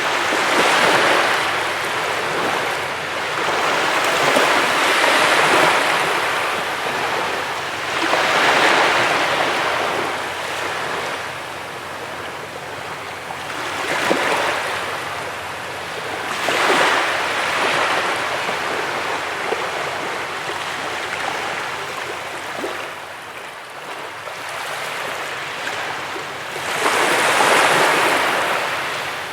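Ocean waves breaking on a beach: a rushing surf that swells and falls back every few seconds, with a loud surge near the end.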